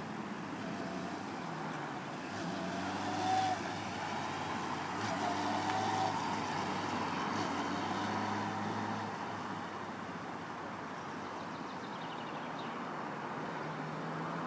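Motorcycle engine running at low speed, with short rises in revs about three seconds in and again around five to six seconds in.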